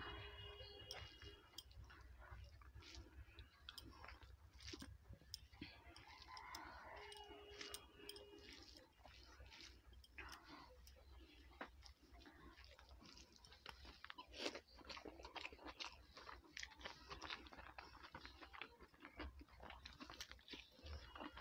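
Faint close-up eating sounds: wet, irregular squishes and clicks of rice being mixed by hand on the plate, and soft chewing.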